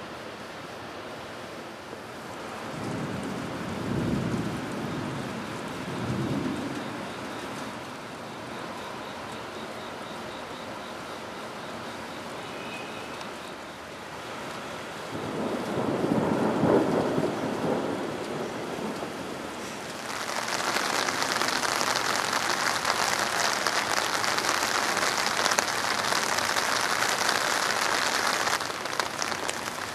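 Thunder rumbling: two low rolling swells a few seconds in, then a louder rumble about halfway. About two-thirds of the way in, heavy rain starts pouring with a steady hiss that eases slightly near the end.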